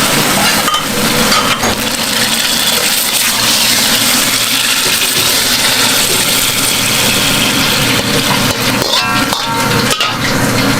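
Yakisoba noodles and seafood frying on a hot iron griddle: a steady loud sizzle with occasional metallic clicks of the cooking spatulas.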